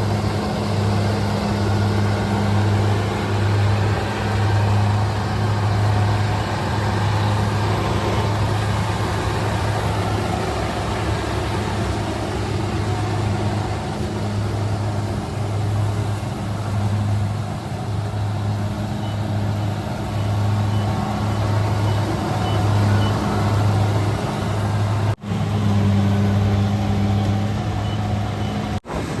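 Kubota DC-70G rice combine harvester running steadily while harvesting: a low diesel drone that pulses slightly in level over a continuous mechanical rush. The sound drops out briefly twice near the end.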